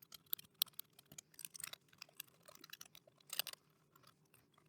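Scalpel blade scraping a metal lug clean: faint, irregular short scratches and clicks, with a brief denser run of scraping about three and a half seconds in.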